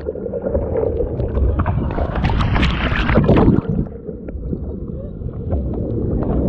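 Wind buffeting the microphone over rushing water, with a louder, splashier stretch from about two seconds in that eases after about three and a half seconds.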